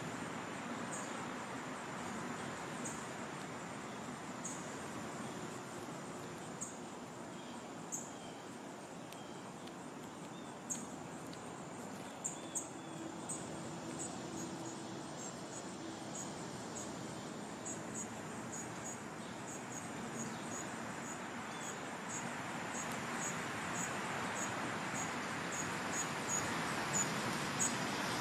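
Outdoor nature ambience: a steady background hiss with short, high-pitched chirps repeating every second or so at first and coming faster and more often toward the end.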